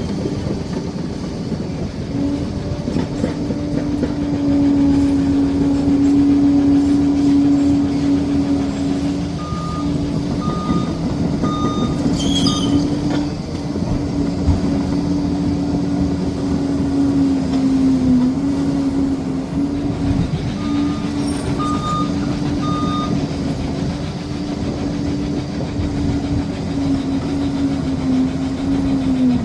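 Liebherr PR 746 Litronic crawler dozer's diesel engine running steadily as it works. A reversing alarm beeps four times about ten seconds in, and four times again about twenty seconds in.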